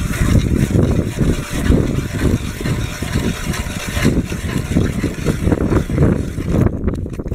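Ice auger boring a hole through river ice, its blades cutting steadily and churning out ice chips with a rough, continuous grinding. The sound eases off slightly near the end.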